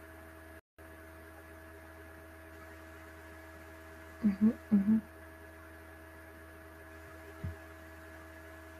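Steady electrical mains hum on a computer microphone, several fixed tones held at one level. A woman's voice makes two short syllables about halfway through, and a soft low thump comes near the end.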